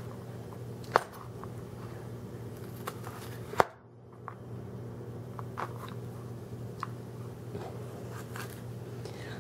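Chef's knife cutting carrot into matchsticks on a plastic cutting board: a few separate, irregular taps of the blade through the carrot onto the board, the loudest about three and a half seconds in.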